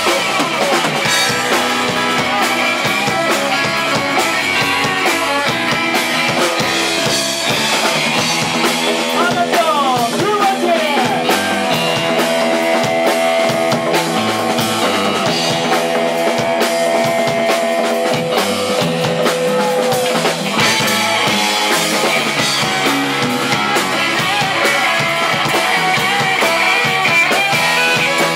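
Live band playing an upbeat instrumental with organ-toned keyboard, electric bass, electric guitar and drum kit. Around ten seconds in there are sliding pitch glides, followed by long held notes that carry over the beat until about twenty seconds in.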